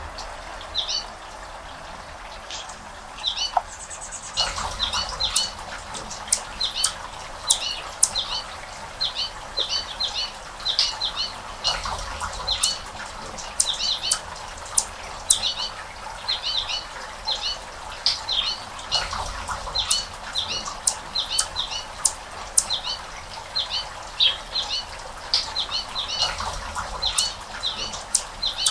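A small bird chirping repeatedly: short, sharp, high chirps, a few each second, over a steady background hiss.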